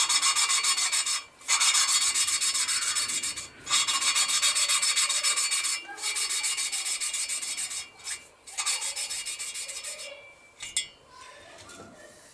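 Valve lapping in a Yamaha XS650 cylinder head: a stainless poppet valve spun back and forth against its seat with lapping paste, making a gritty rasping. It comes in five spells of a second or two with short pauses, the last ones fainter.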